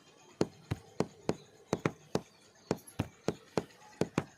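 Sharp, rhythmic knocks, about three a second and a little uneven, some coming in quick pairs.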